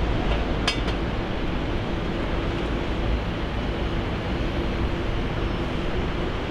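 Steady noise of jet aircraft engines at an airport, with a faint steady tone through it. A short sharp clink sounds near the start.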